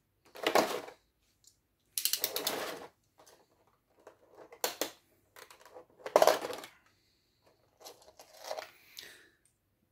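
Clear plastic packaging tray being handled and pulled at by hand: a series of irregular crinkles, scrapes and clicks in about five separate bursts, the loudest about six seconds in.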